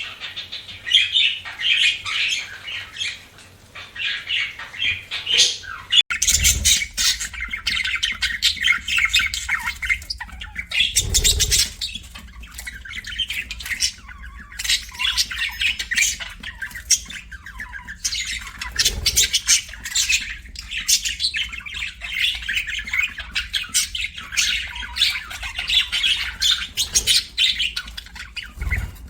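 Budgerigars chattering: a rapid, continuous stream of high chirps, warbles and squawks. A few low thuds sound under it.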